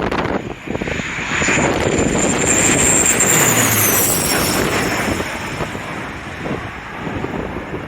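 A Bombardier regional airliner passes low overhead on landing approach. Its engine noise swells to a peak about three seconds in and then fades, and a high whine drops in pitch as it goes by. Gusty wind buffets the microphone near the start and end.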